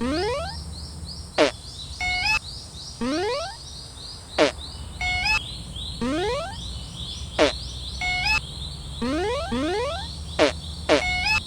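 A looping cycle of comic sound effects, repeating about every three seconds: a sharp hit, a short run of stepped beeps, and a few quick rising whistle-like sweeps. A steady high chirping runs underneath.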